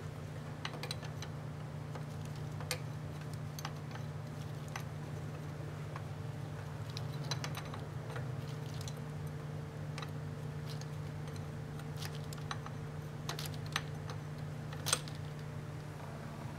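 Scattered light clicks and taps of hand tools and parts being handled while a transmission cooler line is disconnected, over a steady low hum. One sharper click comes near the end.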